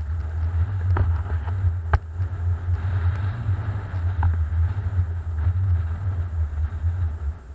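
Wind buffeting the camera's microphone: a steady low rumble, with a few sharp knocks about one and two seconds in and again after four seconds.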